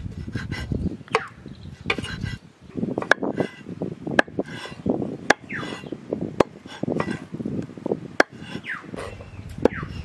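Knife chopping raw boneless chicken into small pieces on a wooden board: sharp knocks of the blade on the board about once a second, with the soft sounds of the meat being handled between them.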